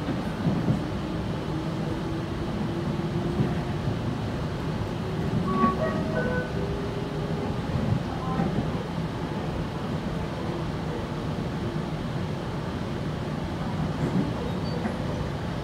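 Running noise heard inside a Sydney Trains Tangara electric train as it accelerates. There is a steady rumble of wheels on the track, and a traction-motor whine rises in pitch over the first half. A few short, higher squeaks and tones come in around the middle.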